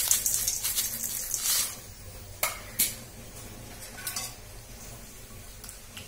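Coarse salt poured off a steel plate onto spice powder in a steel pot, a grainy hiss for about two seconds, followed by two sharp metallic clinks as the plate is handled and set down.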